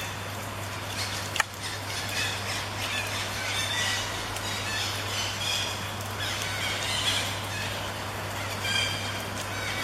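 Parrots chirping and squawking, many short calls overlapping as from a flock, over a steady low hum. A sharp click about a second and a half in.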